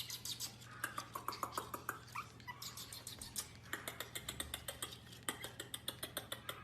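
A dog giving a few short whimpers in the first couple of seconds, over a continuous run of rapid clicks and taps, with a low steady hum underneath.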